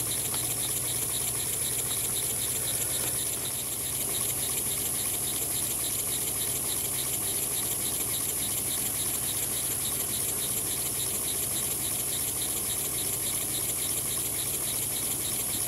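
Small single-cylinder vertical model steam engine, machined from bar stock, running steadily on compressed air: an even, rapid exhaust beat over a constant high hiss.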